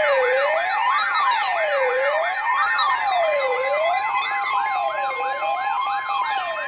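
Layered electronic siren tones that open an emergency alert. A slow wail rises and falls about every one and a half seconds, a faster warbling sweep repeats several times a second, and steady alert tones sit beneath them.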